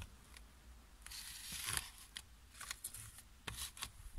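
Faint handling sounds: soft rustling and a few light clicks and taps as small cardboard boxes are moved about by hand.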